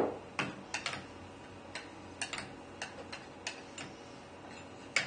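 A dozen or so light, irregular clicks and ticks from a CNC router's collet nut and spindle being turned by hand to seat and tighten a new two-flute bit, with a louder cluster of clicks at the start and near the end.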